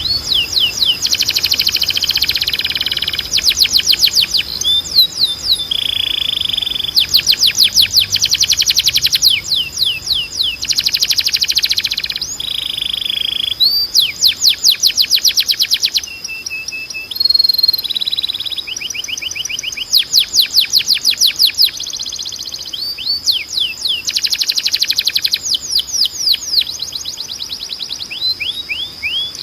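Timbrado canary singing: a long song of fast rolled trills, each run of rapidly repeated notes lasting one to two seconds, broken by short level held notes, over a thin steady high tone.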